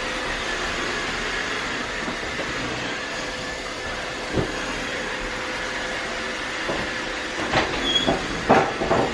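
Roomba robot vacuum running with a steady motor and brush noise, with a knock about four seconds in and several more knocks near the end.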